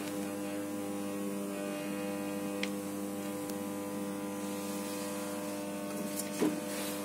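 Thyristor phase-angle-controlled AC-DC power supply running under a lamp load, giving a steady electrical hum with several overtones. A faint tick comes about two and a half seconds in, and a short knock comes about six seconds in.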